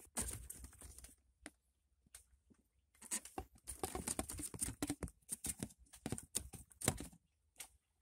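Screwdriver working the screws out of the gear-indicator plate in a car's plastic centre console: a run of small irregular clicks and scrapes, sparse at first, then coming thick and fast from about three seconds in until near the end.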